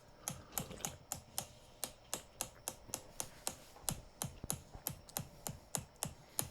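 Quick, even taps of a small mallet striking a chisel-like chiropractic adjusting instrument held on the shoulder muscles, about three or four strikes a second, each with a short dull thud.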